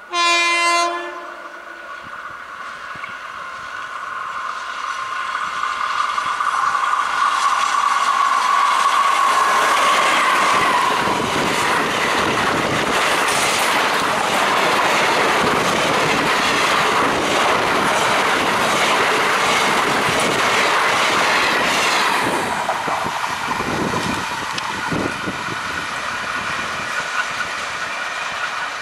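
Indian Railways electric locomotive giving one loud horn blast of about a second. A passenger train then approaches with a steady whine that drops in pitch as the locomotive goes by. The coaches' wheels then rumble and clatter over the rail joints for about twelve seconds before the noise falls away as the train moves off.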